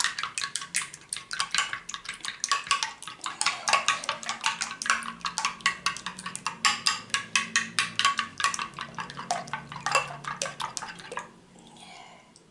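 A metal teaspoon beats an egg mixture in a ceramic bowl: rapid clinks of spoon on bowl, about six a second, stopping about a second before the end.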